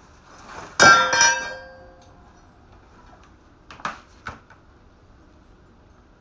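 Two quick clinks that ring briefly, about a second in, followed by two short knocks a few seconds later.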